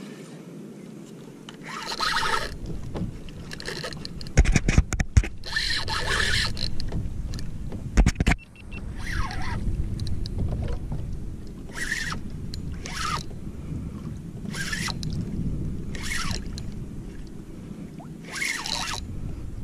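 Water splashing and slapping against a kayak hull in short bursts every one to two seconds from about nine seconds in, over a steady low rumble. A clatter of sharp knocks on the kayak around four to five seconds in and again around eight seconds.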